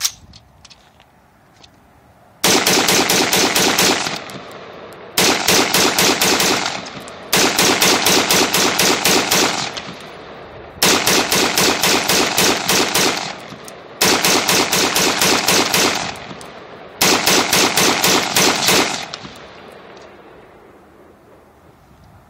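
Double Star AR-15 rifle firing .223 rounds in six rapid strings of about five shots a second, each string about two seconds long with short pauses between, and each trailing off in echo.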